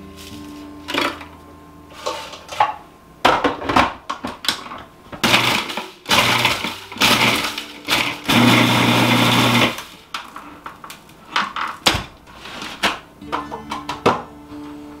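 Food processor pulsing toasted bread into breadcrumbs: a few short bursts of the motor, then a longer run of about a second and a half, with knocks from handling the machine around them.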